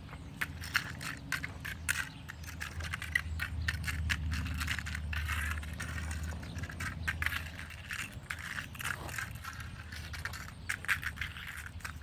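Irregular clicks, scrapes and crunches of dropped screws and nails being picked up off the ground, the small metal pieces clinking together in a hand.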